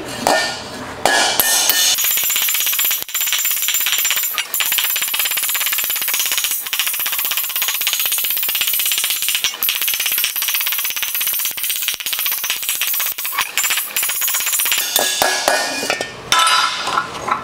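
Slapper spoon striking a sheet-metal panel held over a dolly, a fast, even stream of light metallic blows planishing the panel's lows and highs. It starts about two seconds in and stops shortly before the end.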